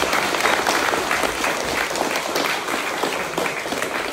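A roomful of people applauding: a steady mass of clapping that thins out near the end.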